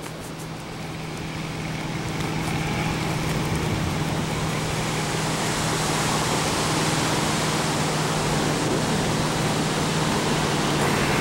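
Steady rush of wind over the microphone high in the air, with a low steady hum underneath; it grows louder over the first couple of seconds, then holds.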